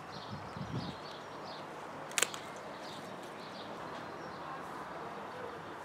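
Small birds chirping, short calls two or three a second, over a steady outdoor hiss. A few dull low thuds come in the first second, and one sharp click about two seconds in is the loudest sound.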